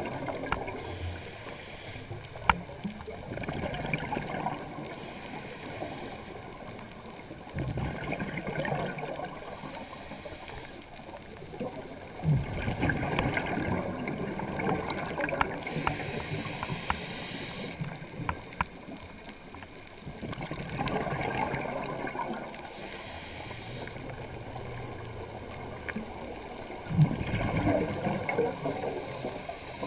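Scuba regulator breathing heard underwater: bursts of bubbling exhaust from exhaled breaths every few seconds, alternating with the hiss of inhalations through the regulator. A few sharp clicks are scattered through it.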